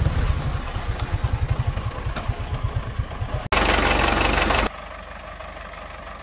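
Diesel engine of a loaded Hoa Mai dump truck running as the truck moves off, a fast, even low pulse. About three and a half seconds in the sound cuts suddenly to a louder, close-up engine sound for about a second, then drops to a quieter, steady engine run.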